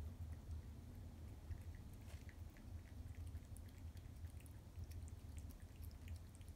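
A cat eating from a metal bowl: faint, irregular wet chewing and small clicks as it takes and chews its food. A low steady hum runs underneath.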